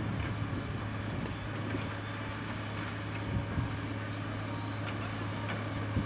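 Hidromek MG 330 motor grader's diesel engine running at a steady low hum while the machine drives forward, grading soil with its blade.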